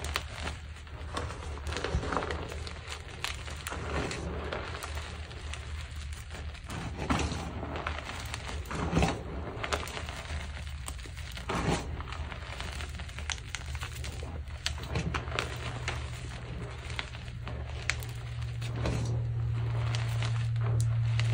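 Gym chalk being crushed and crumbled: a long run of irregular crunches and crackles. A steady low hum comes up beneath it and grows louder over the last several seconds.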